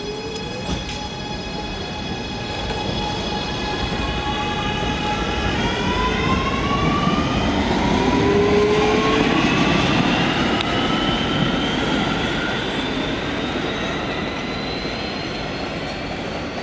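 Kawasaki R211S subway train accelerating out of the station. Its propulsion gives a stacked whine that climbs steadily in pitch, with a jump in the tones about five seconds in, over the rumble of wheels on rail.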